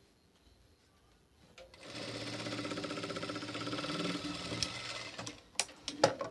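Sewing machine running steadily for about three and a half seconds, stitching a seam, after a quiet start. A few sharp clicks follow near the end.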